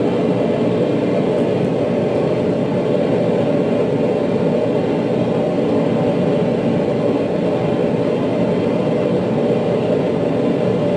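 Steady, even rumbling rush of workshop machinery, with no rhythm or strikes.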